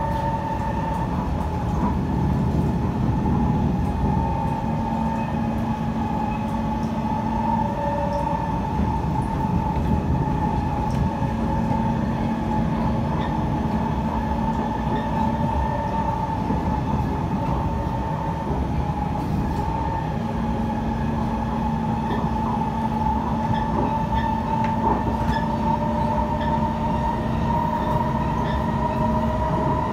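Kawasaki C151 metro train running at speed, heard from inside the passenger car: a steady rumble of wheels on rail with a steady high whine over it. A lower hum comes and goes three times.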